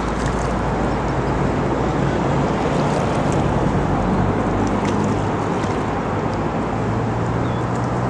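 Steady rumble of road traffic, with low engine hum running under an even wash of noise.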